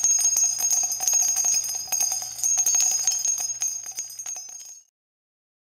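Jingling bells: many quick metallic strikes over a steady ringing tone, cutting off suddenly near the end.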